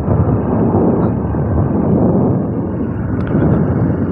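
Wind rushing over a chest-strapped phone's microphone while riding a Honda Revo Absolute 110 motorcycle, its small single-cylinder four-stroke engine running steadily underneath.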